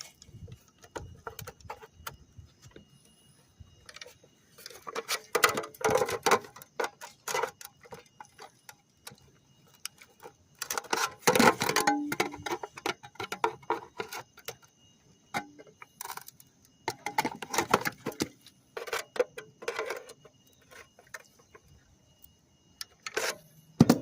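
Hand crimping tool working the end of a sheet-metal downspout: several bouts of rapid metallic clicking and ticking as the jaws squeeze the edge, with short pauses between them and a sharp click near the end.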